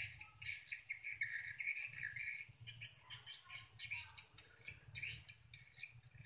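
Swiftlets twittering around a swiftlet house: rapid, repeated high chirps with no let-up, joined by a few higher, sharper calls about four to five seconds in.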